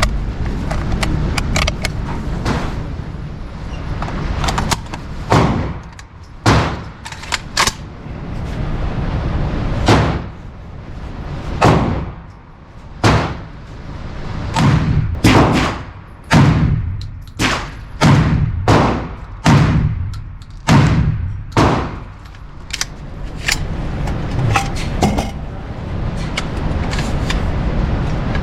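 Radikal NK-1 semi-automatic 12-gauge shotgun firing many shots. They come in quick strings about half a second apart with longer pauses between them, each shot a sharp bang with a short fading tail.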